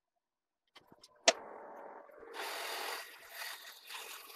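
A manual engine lathe starting up: a few small clicks and a sharp click about a second in, then the spindle and gearing running with a steady, wavering rushing noise that gets louder about two seconds in.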